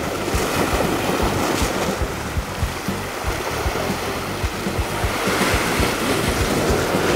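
Sea waves and wind on open water, with background music underneath and irregular low wind buffets on the microphone.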